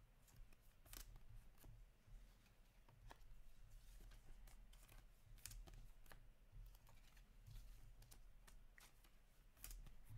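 Faint, irregular clicks and light rustling of trading cards being handled and flicked through by hand, over a low steady hum.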